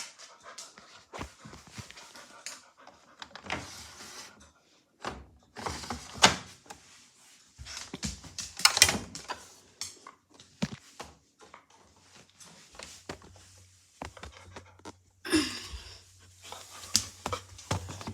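Bush washing machine being handled and started: irregular clicks and knocks with short bursts of hiss, then a low steady hum from about 13 seconds in.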